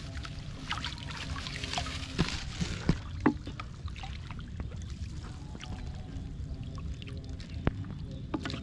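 Hands and legs splashing and sloshing in shallow muddy water, with irregular small splashes and drips, busiest a couple of seconds in, over a steady low rumble.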